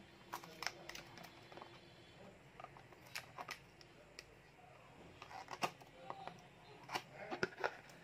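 Faint handling of a small cardboard phone box: scattered light clicks, taps and rustles as the seal sticker is picked at and peeled and the box is worked open.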